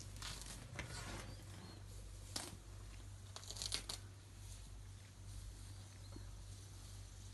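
Faint rustling and tearing sounds in a few short bursts, about a second in, near two and a half seconds and near four seconds, over a low steady hum.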